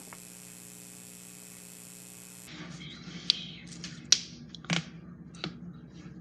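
Steady electrical hum, then a series of sharp joint cracks: about four clear pops, roughly one every three-quarters of a second, with a few fainter clicks between them.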